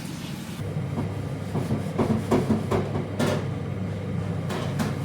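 Air fryer fan coming up to speed about half a second in and running with a steady hum as cooking begins. Several light knocks and clicks sound over it.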